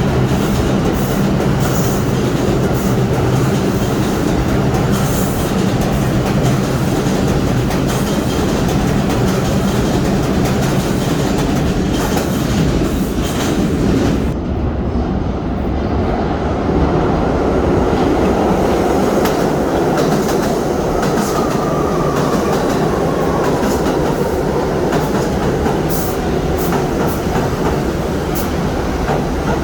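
New York City subway train running, a continuous loud rumble with the clickety-clack of wheels over rail joints. A steady low hum runs through the first half and stops about halfway through.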